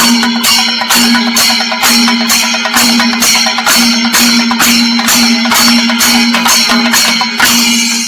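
Singari melam percussion ensemble playing loudly: chenda drums rolling fast under ilathalam hand cymbals clashing in an even beat about twice a second, with a low tone pulsing along with the beat.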